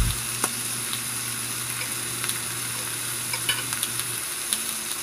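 Pork belly slices sizzling on a hot grill pan, a steady frying hiss, with a few light clicks scattered through it.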